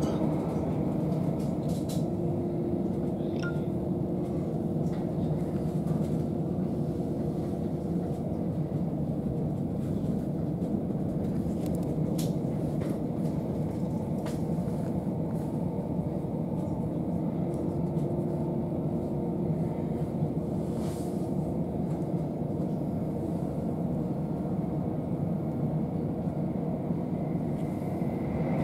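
Inside a c2c Class 357 electric multiple unit running at speed: the steady rumble of wheels on the track, with a steady hum that comes in for several seconds, fades, and returns later, and a few faint clicks.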